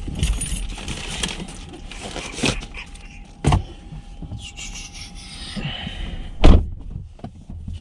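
A few sharp knocks and thumps around a car, the loudest about six and a half seconds in, over a faint steady high tone that stops about five and a half seconds in.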